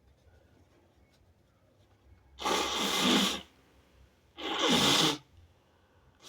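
A person sneezing twice, each sneeze about a second long, a second apart; a third sneeze starts right at the end.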